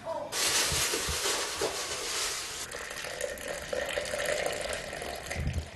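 Water being poured into a vessel to make tea. A steady rush starts suddenly, is loudest for about two seconds, then eases and continues more quietly, with a few low knocks of handling.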